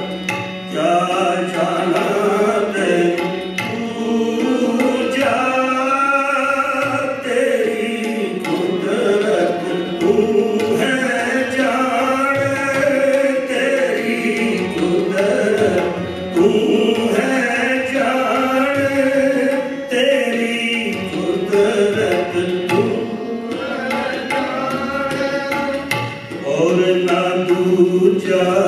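Sikh kirtan: male voices singing a Gurbani hymn, accompanied by two harmoniums holding a steady sustained tone and a tabla pair keeping the beat.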